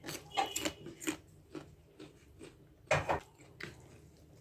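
Close-miked eating sounds: wet chewing and lip smacks on a mouthful of soft food, in several short bursts, the loudest about three seconds in.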